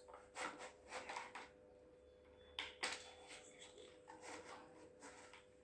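Faint clicks and rustles of a rubber band being stretched and hooked over the plastic-headed pins of a geoboard, with a sharper tick nearly three seconds in. A faint steady hum runs underneath.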